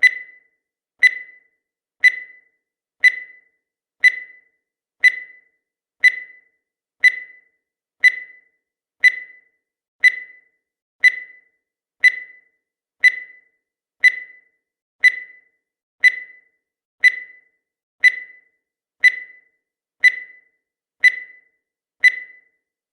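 Countdown timer beeping once a second: a short, high single-pitched beep that dies away quickly, repeating evenly.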